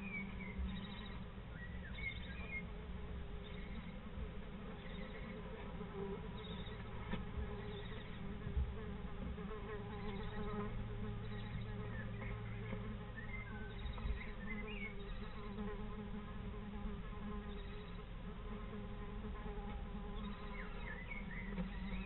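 A steady buzzing drone with no break, with a few faint short chirps here and there.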